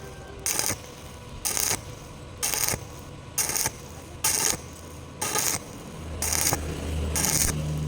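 Stick-welding arc crackling in short, even bursts about once a second, over a low steady hum.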